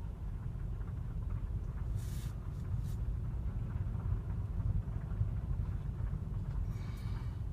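BMW F30 320i moving in reverse gear, heard from inside the cabin: a steady low drivetrain rumble, with a faint extra whistle barely above it. The owner hears this whistle on top of the usual reversing whine and treats it as abnormal. Two brief hisses break in, about two seconds in and near the end.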